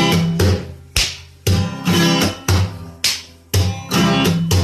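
Background music: guitar chords strummed in a steady rhythm, each one dying away before the next.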